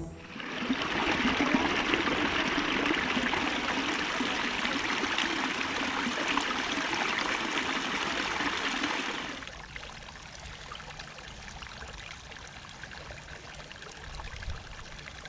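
Small woodland stream splashing steadily over a low rocky step; about nine seconds in it drops to a quieter, shallower trickle.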